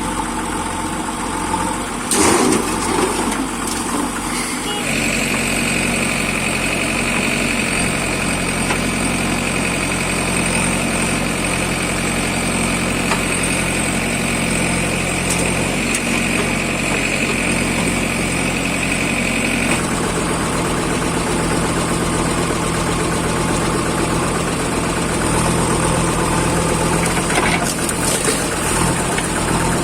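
Engine of heavy machinery running steadily, as from a backhoe loader or tractor, with a brief louder noise about two seconds in. A steady high whine sits over the engine from about five seconds in until about twenty seconds in, where the engine note shifts.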